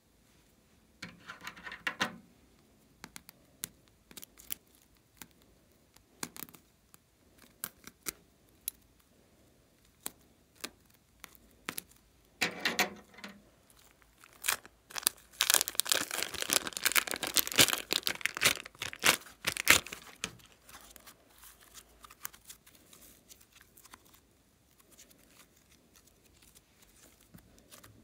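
Plastic piping bag of green glossy slime crinkling in the hands as it is squeezed, with the slime crackling and popping as it is pressed out. The crackling comes in short bursts, densest for about five seconds in the middle.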